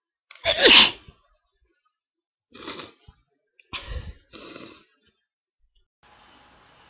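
A person sneezes loudly about half a second in, the voice dropping in pitch through the sneeze; the sneezing is brought on by inhaled pepper. Three shorter, quieter bursts follow a couple of seconds later.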